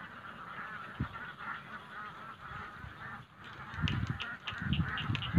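A dense, steady chorus of animal calls. A short break comes about three seconds in, followed by a high chirp repeating about three times a second over low thumps and rumbling.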